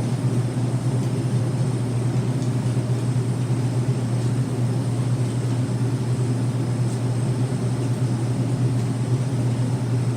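A steady low machine hum, like a motor running, unchanging throughout, with a few faint ticks.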